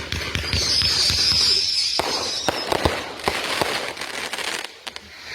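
Consumer fireworks going off: a sudden start, then a dense string of sharp bangs and crackling, with a high wavering whistle through the first two seconds. The firing dies down near the end.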